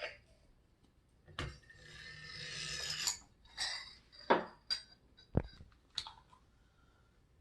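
Hard parts being handled, giving a scattered series of clicks, clinks and knocks with a deep thump about five seconds in. There is a scraping rustle between about one and a half and three seconds in.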